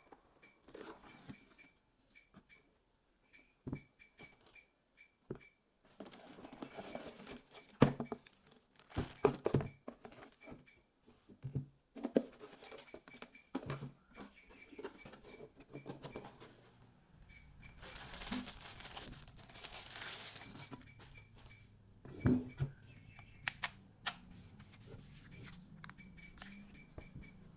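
Unboxing sounds: cardboard and plastic packaging rustling, tearing and crinkling, with scattered clicks and knocks as the parts are handled. The grinder is not running.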